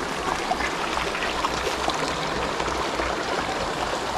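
Shallow creek running over stones: a steady rush of water.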